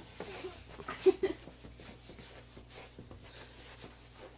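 A toddler crawling on carpet: faint rustling and scuffing, with two short vocal sounds from the child about a second in.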